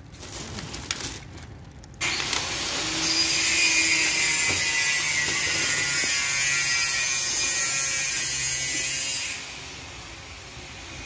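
A power tool runs steadily with a harsh, hissing whir for about seven seconds, starting suddenly about two seconds in and stopping shortly before the end.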